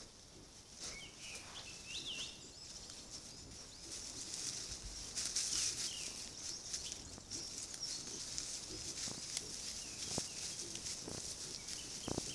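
Small birds giving a few short chirps over a steady high hiss, with sharp rustles and soft knocks near the end from wild boar moving through dry grass and leaf litter.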